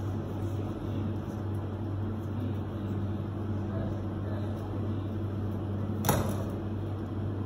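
Steady low mechanical hum of kitchen equipment, with one sharp knock about six seconds in as a knife cuts through a crusty baguette onto a plastic cutting board.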